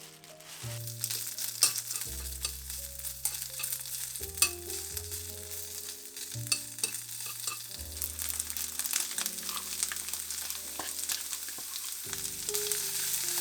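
Food frying in a pan, a steady sizzle with scattered clicks of a utensil stirring against the pan; the sizzle swells about half a second in.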